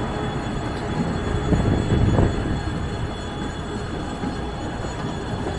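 Coupled pair of EP2K electric locomotives moving off with a passenger train and passing close by: a steady rumble of wheels and running gear on the rails, with a louder swell about two seconds in.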